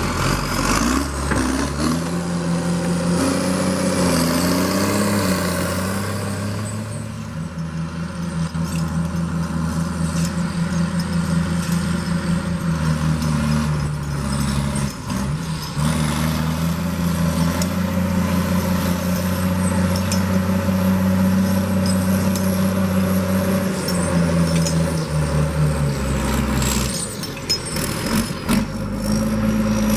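Heavy diesel engine of logging machinery running under varying load, its pitch stepping up and down a few times and dropping for a couple of seconds near the end.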